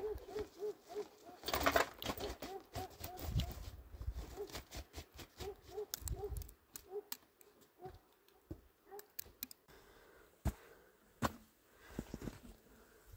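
A rapid series of short hooting calls, about four a second, fading out about nine seconds in, with rustling and knocks from a backpack being handled; a few sharp knocks near the end.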